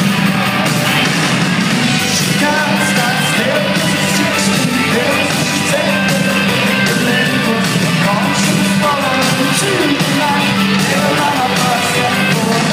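Indie rock band playing live: electric guitars and drums, loud and steady, with singing over them from about two seconds in.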